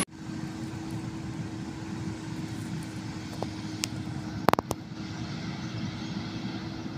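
A combine harvester running steadily while cutting wheat, a steady engine drone with a constant hum. A few sharp clicks about four and a half seconds in.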